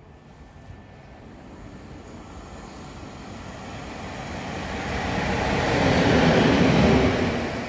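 PKP Cargo ET22 electric locomotive running light, with no wagons, approaching and passing close by. Its rumble builds steadily, is loudest about six to seven seconds in, then falls away as it goes by.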